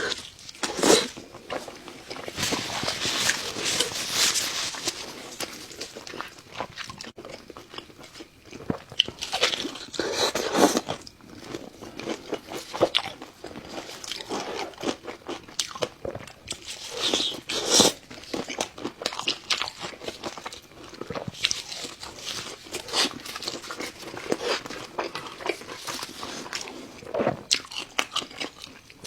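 Close-miked eating: bites and crunchy chewing of crisp food, in irregular clusters of crackling crunches with quieter chewing in between.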